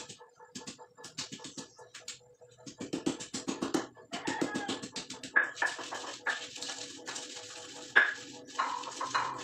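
Stone pestle pounding and grinding candlenuts and spices in a flat stone mortar: quick knocks in the first half, then rougher grinding with a few louder knocks.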